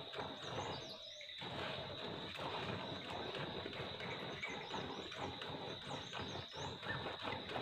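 A cow being milked by hand: milk squirting in rhythmic streams into a plastic bucket, with a brief pause about a second in. Small birds chirp faintly a few times in the background.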